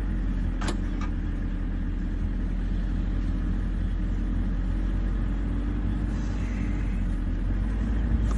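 Vehicle engine idling steadily with a low rumble, with one sharp click about a second in.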